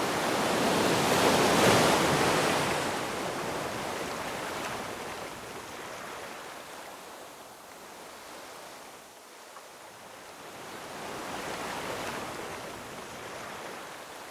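Ocean waves breaking on rocks. A large wave crashes and washes about two seconds in, then dies away, and a smaller wave swells in near the end.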